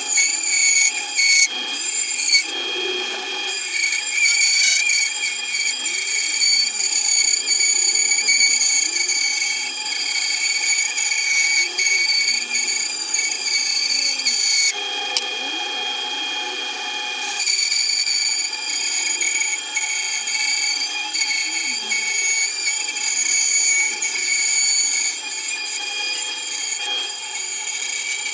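Bandsaw running and cutting through a wooden instrument back as the board is fed through the blade: a steady high-pitched whine with the rasp of the blade in the wood. The whine changes pitch briefly about three seconds in and again for a couple of seconds near the middle.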